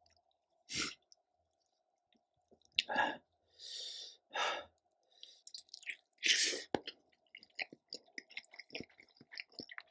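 Sharp breathy exhales and sniffs from someone eating very spicy kimchi, then small wet chewing and mouth clicks through the second half.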